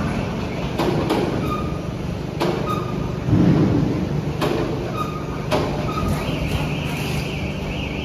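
Factory floor noise: a steady machinery hum with irregular metallic knocks and clanks, several leaving a short ring, and a louder thud about three seconds in.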